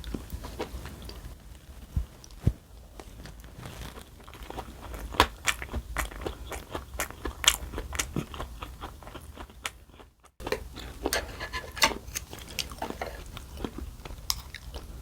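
Close-miked mouth sounds of someone eating: chewing and crunching with many sharp, irregular clicks and smacks. The sound cuts out briefly about ten seconds in.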